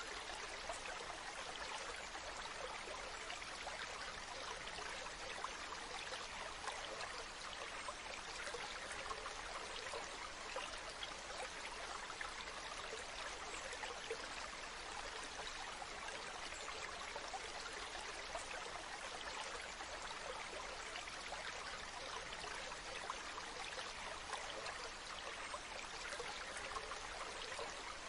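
Waterfall running: a steady, even rush of falling and splashing water with no change in level.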